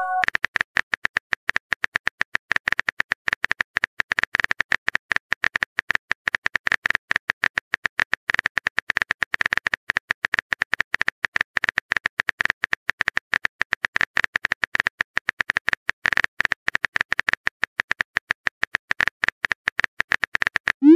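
Phone keyboard typing clicks: rapid, irregular key-tap clicks, several a second, as a text message is typed out.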